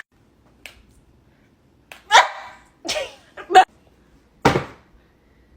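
A dog barking: four short barks, about two to three seconds in and again near four and a half seconds, with quiet between them.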